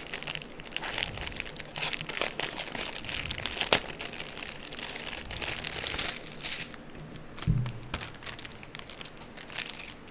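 A large clear plastic bag holding packets of diamond-painting drills crinkling and rustling as it is handled and opened, with many small crackles and one sharp click a little over a third of the way through. The crinkling thins out in the last third, where a dull thud sounds about three-quarters through.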